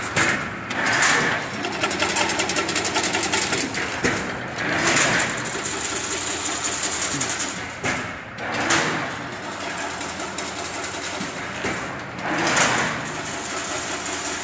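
Chain link fence weaving machine running: a fast, steady mechanical clatter, with a louder swell about every four seconds as it works through its weaving cycle.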